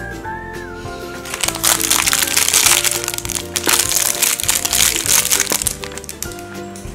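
Background music, over which thin plastic packaging crackles and crinkles for about four seconds as a small plastic toy is unwrapped by hand.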